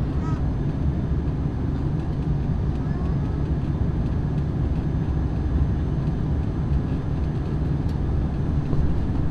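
Steady cabin drone of an ATR 42 twin-turboprop airliner, its engines and propellers making an even low hum under a wash of air noise.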